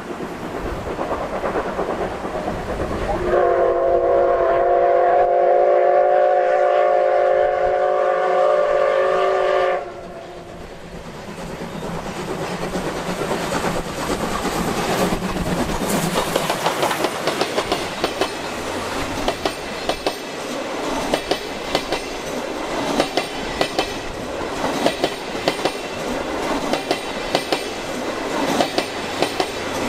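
Steam locomotive C57 180's whistle sounding one long blast of about six seconds, which cuts off sharply. Then the locomotive's exhaust beats and the coaches' wheels clicking over the rail joints grow louder as the train passes close by.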